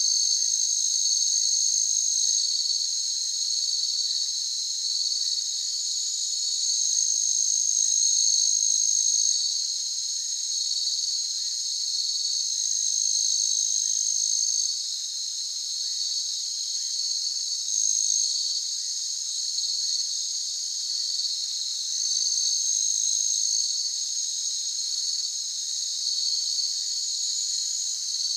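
Chorus of insects, such as crickets or cicadas, trilling steadily in a continuous high-pitched drone with a faint regular pulsing.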